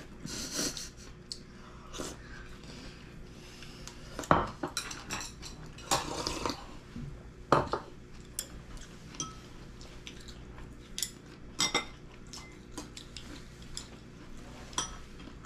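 Tableware sounds of a meal: chopsticks clicking against ceramic and lacquered wooden bowls, and bowls knocking as they are lifted and set down on a wooden table. Scattered short clinks and knocks, a few louder ones about four, six and seven and a half seconds in.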